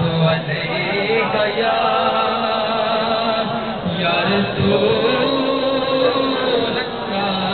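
A man chanting a devotional naat into a microphone, in long wavering held notes that rise and fall.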